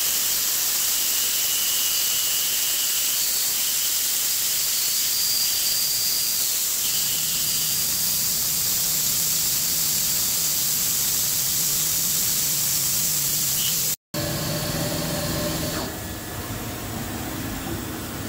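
12 mm end mill on a CNC vertical milling machine taking a full 27 mm-deep, 5 mm-wide side cut in steel: a loud steady hiss with a thin high whine that comes and goes. About fourteen seconds in the sound breaks off for an instant and gives way to a quieter, lower machine hum.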